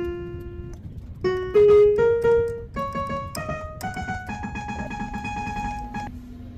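Background music: a melody of single notes climbing step by step, then one long held note from about four seconds in until shortly before the end.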